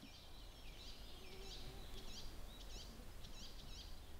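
Faint outdoor ambience with a small bird chirping, short high chirps repeated in quick runs from about a second in.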